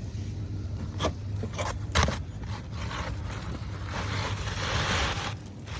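Work on asphalt roof shingles: a few sharp knocks about one and two seconds in, then a scrape lasting about a second near the end.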